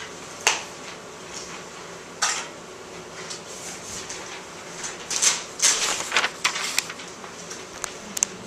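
Sharp clicks and light clatter of hard objects handled close to the microphone. Single ones come about half a second and two seconds in, and a quick run of them comes between five and six and a half seconds, over steady background noise.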